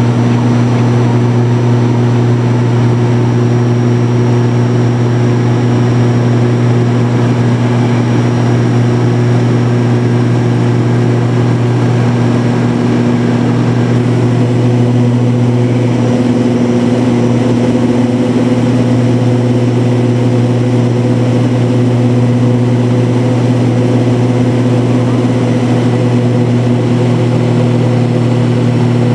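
Steady drone of a CASA C-295's two turboprop engines and six-bladed propellers, heard inside the cabin in flight. It is a loud, even hum with a strong deep propeller tone and a higher overtone, over a constant rush of airflow and engine noise.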